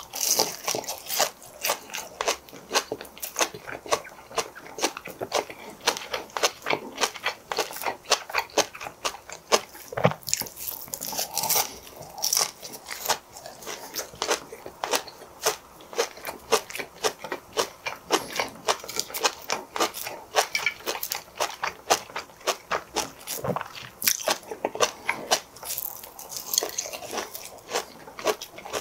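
Close-miked biting and chewing of crispy breaded fried herring roe (kazunoko), a rapid, continuous run of crunches.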